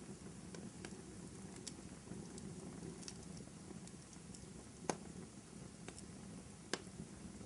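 Wood fire burning in a fireplace: a steady low rush of flame under scattered sharp crackles and pops. The loudest pop comes about five seconds in and another near the end.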